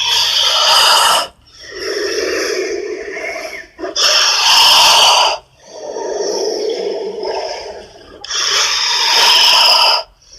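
Giant movie anaconda's creature sound effect: three loud hisses about four seconds apart, with lower rasping sounds between them.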